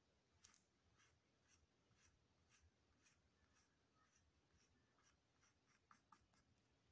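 Very faint scratching of a pencil shading on drawing paper, in short strokes about two a second.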